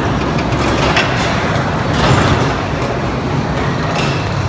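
Small indoor roller coaster train running along its track: a steady rumble of wheels on rail, with a couple of sharp clacks.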